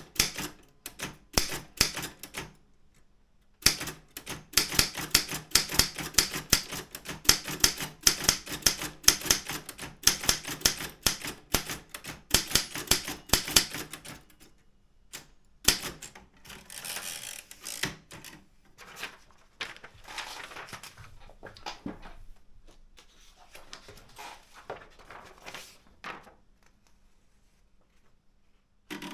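Daro Optima M16 manual typewriter being typed on: a short run of keystrokes, a pause of about a second, then a long fast stretch of key strikes. In the second half come quieter, sparser clicks and soft rubbing sounds, and near the end it falls nearly silent.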